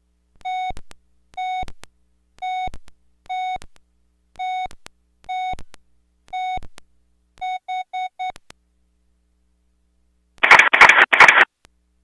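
Cell phone ringtone from a Samsung SPH-A840's speaker: seven plain electronic beeps at one pitch, about one a second, then four quick beeps. After a short pause there is a loud harsh buzzing burst of about a second near the end.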